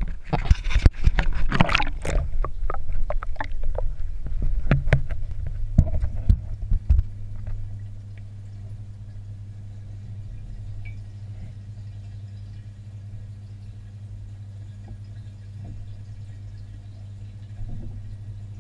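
A camera is handled and plunged into a fish tank: loud knocks, bumps and water noise for the first several seconds. Then, underwater, a steady low hum runs on, with a small bump near the end.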